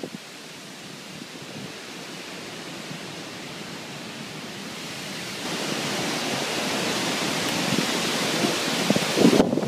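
Storm wind blowing with a steady rush that grows louder about halfway through, and gusts buffeting the microphone near the end.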